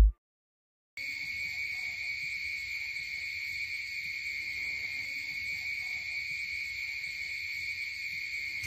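Crickets chirping in a steady, continuous high-pitched chorus, starting about a second in after a moment of silence.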